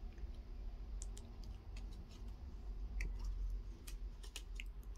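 Scattered light clicks and taps as a Samsung smartwatch and its strap are handled and set on a tabletop, over a low steady hum.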